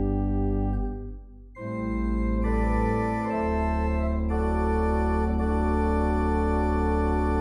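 Organ music in slow, held chords. It dips briefly about a second in, then comes back with a new chord whose notes enter one after another and change slowly.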